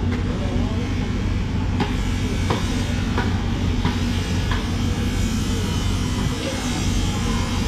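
A knife working inside a bluefin tuna's head, giving about five short knocks and scrapes a little under a second apart. A steady low hum underneath is the loudest sound.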